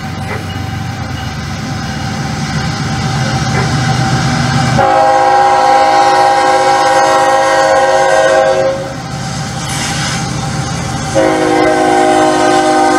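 Diesel locomotive air horn sounding two long blasts, several notes at once, over a steady low engine rumble. The first blast comes about five seconds in and lasts about four seconds; the second starts near the end.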